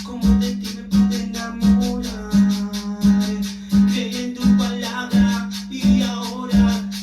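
Cumbia music: a bass note pulsing about every 0.7 s under a steady shaker and a plucked guitar melody, with no clear singing.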